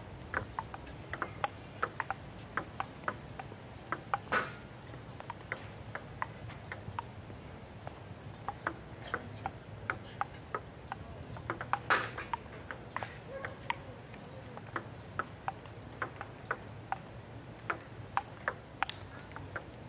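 Table tennis balls clicking against paddles and table tops in rallies on two tables at once: a stream of quick, irregular taps overlapping, with a couple of louder hits about four and twelve seconds in.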